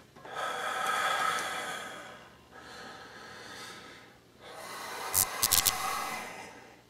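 Heavy, drawn-out breathing: one long breath over the first two seconds, a quieter one, then another from about four and a half seconds. During the last breath comes a quick run of sharp crackles, the added electric-spark effect.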